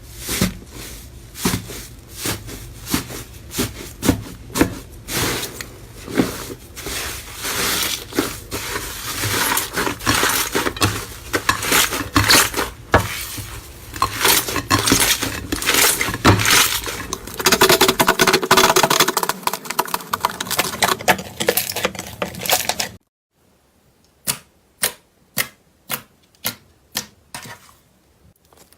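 Slime being squeezed and pressed by hand, making a dense run of sticky clicks, crackles and pops. About three-quarters of the way in it cuts suddenly to a quieter stretch of single clicks, about two a second.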